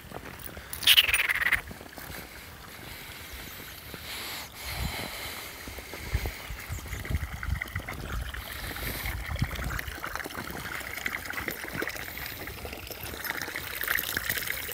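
Footsteps crunching through crusted snow as a person and a dog move across it, with low thumps throughout. About a second in, a brief high squeal falling in pitch is the loudest sound.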